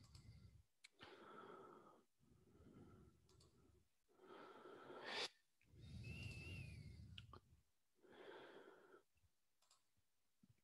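Faint breathing close to a headset microphone, in soft breaths about one to two seconds apart, with a few faint clicks among them.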